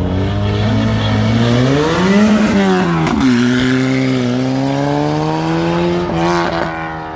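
Open-cockpit racing sports prototype's engine held at high revs at the start line, then launching: the revs climb, drop sharply at a gear change about three seconds in, and climb again as the car pulls away up the hill, growing fainter near the end.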